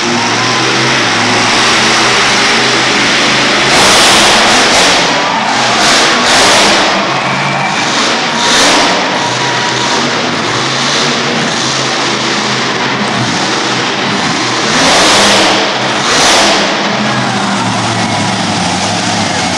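Monster truck engines running, with several short, loud revving surges.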